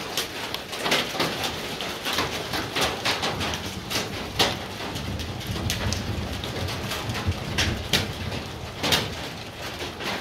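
Rain falling during a thunderstorm: a steady hiss, with sharp ticks of single drops striking close by, a few of them louder than the rest.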